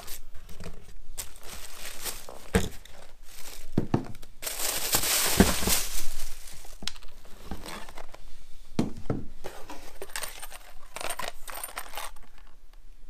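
Packaging being handled: tissue paper and a plastic mailer bag rustling and crinkling, with a longer, louder stretch of crinkling about four to six seconds in. Scattered clicks and light clinks follow as a plastic blister pack of cycling-shoe cleats is picked up near the end.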